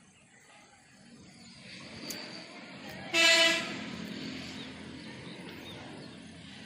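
A single short horn blast about three seconds in, the loudest sound, over a low rumbling noise that builds from about a second and a half in and carries on.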